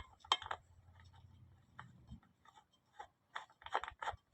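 Light clicks and taps of bolts and small metal parts being handled and fitted by hand into an oil cooler housing, with a cluster of clicks near the end.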